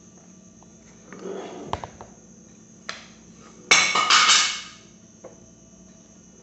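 Handling noise from kitchen candle-making gear: a rustle, two sharp knocks, then a loud, sudden clattering scrape for about a second, starting near the middle.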